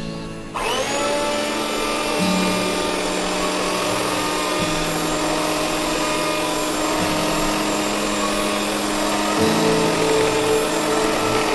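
Electric hand mixer switched on about half a second in, its motor whining up to speed and then running steadily as the beaters mix whipped cream with mango and condensed milk.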